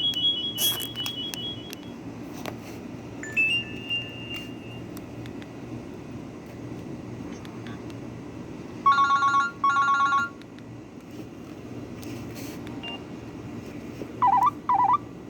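A Nokia 130 mobile phone's speaker plays a string of short classic Nokia 3500 ringtones and alert tones, each lasting a second or less, with gaps and faint clicks between them. Two quick telephone-ring bursts come about nine seconds in, and two short chirps come near the end.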